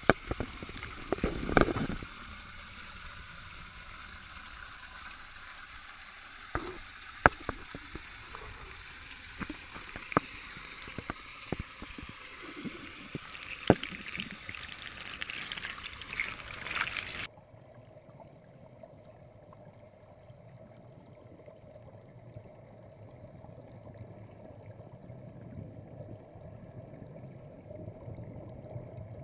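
Water splashing and trickling right at the camera, with scattered sharp clicks. About two thirds through it cuts abruptly to a quieter, muffled sound with a low hum as the camera goes under the water.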